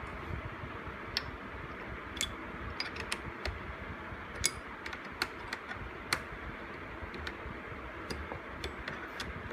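Irregular light clicks and taps of small metal parts as a hinge is turned and handled on a steel gauging fixture, the loudest about four and a half seconds in, over a steady background hiss.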